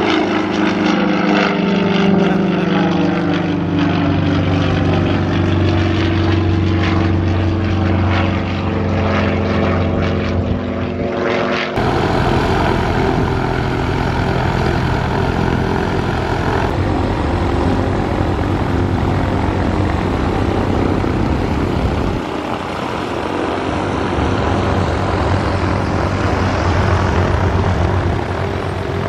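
Single-engine propeller airplane engines. First an aerobatic plane flies overhead with its engine note sliding slowly lower. After an abrupt change about twelve seconds in comes the sound of high-wing light planes running on the ground while they taxi.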